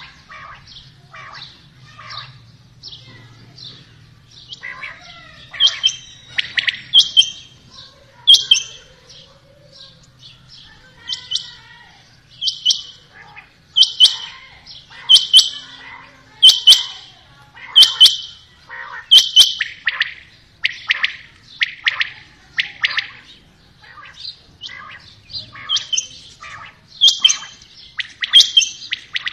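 Rain quail and common quail calling: short, sharp calls repeated about once every second and a half, fainter at first and loudest around the middle.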